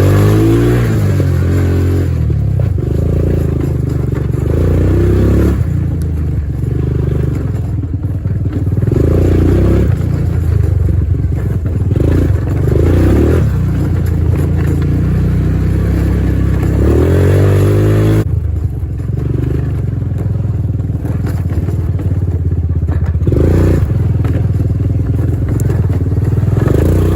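1990 Honda TRX200 ATV's single-cylinder four-stroke engine running under way on a test ride, its pitch rising and falling as it accelerates and eases off.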